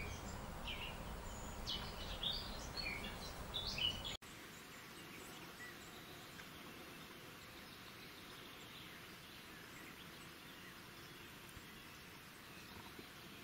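Small birds chirping and singing over steady outdoor background noise. About four seconds in the sound cuts off abruptly to a quieter, even outdoor hiss with only the odd faint chirp.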